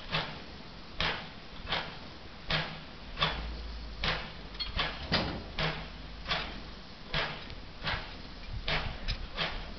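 Exhaust chuffs of a double-headed narrow-gauge steam locomotive working slowly, about one to one and a half sharp beats a second, a little uneven where the two engines' beats fall out of step.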